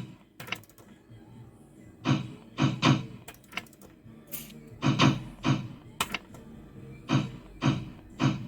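Fruit machine being played: a run of about nine short, sharp clunks, several coming in close pairs.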